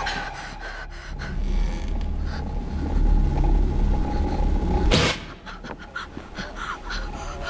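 Horror film soundtrack: a low rumbling drone with heavy panting breaths, and a sharp gasp about five seconds in, after which it turns quieter.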